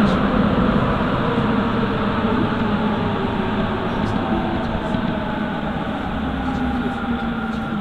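Sapporo Municipal Subway Tozai Line train running on its rubber tyres, heard from inside the car: a steady rumble of tyre and motor noise with faint running tones, growing gradually quieter.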